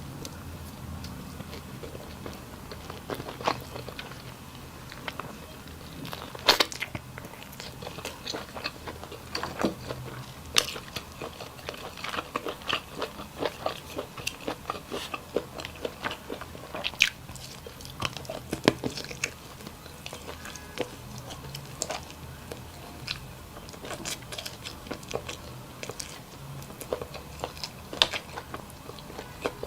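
A person eating close to the microphone: chewing and biting with irregular crunches and clicks.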